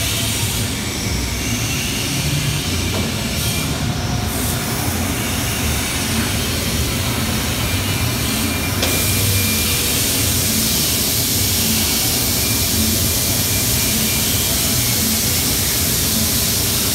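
TIG welding arc at about 105 amps on a steel pipe root pass: a steady hiss that grows brighter about nine seconds in. Under it runs a steady low rumble.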